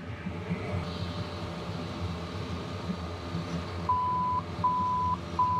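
Three even, single-pitch electronic beeps from the boat's helm electronics powering up once the batteries are combined, over a steady low engine hum.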